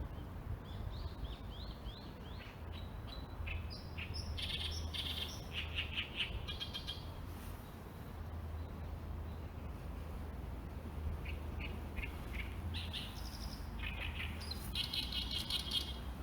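Small birds chirping and calling in quick runs of short notes, densest a few seconds in and again near the end, over a low steady rumble.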